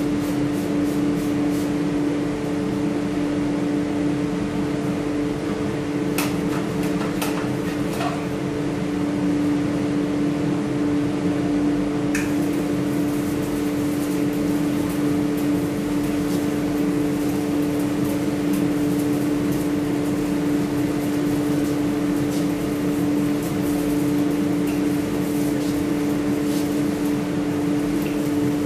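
Steady machine hum, like a ventilation fan, running unchanged throughout. Over it come a few short hissing spurts from a hand trigger sprayer, about six to eight seconds in and again around twelve seconds.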